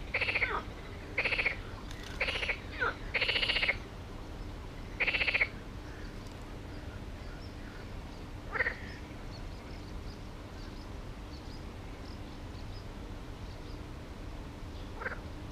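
Frogs croaking: a run of short calls over the first five seconds or so, then single calls around the middle and near the end.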